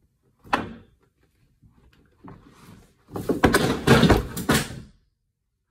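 Household objects being handled: one knock about half a second in, then a burst of knocking and clattering for about two seconds, the sound of someone rummaging through things, with the bumps of a drawer, cupboard or door.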